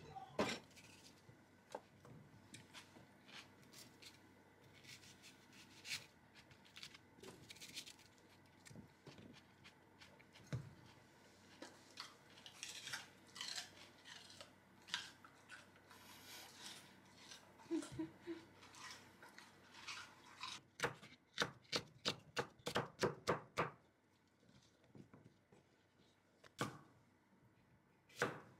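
Chef's knife cutting bell peppers and cucumber on a wooden cutting board: scattered taps and slices, then a quick run of chopping strokes, about four a second, lasting some three seconds from about 21 seconds in.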